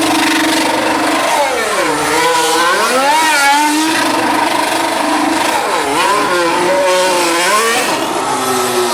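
Formula 1 car engine at high revs, its pitch holding, then dropping and climbing again several times as the throttle is blipped and eased, as in donuts and hard acceleration.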